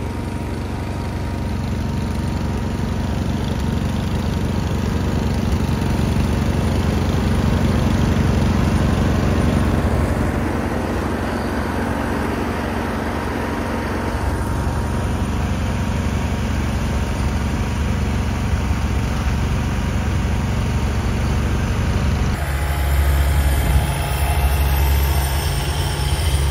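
Garden tractor engine running steadily. About 22 seconds in the sound changes abruptly and the low rumble becomes stronger.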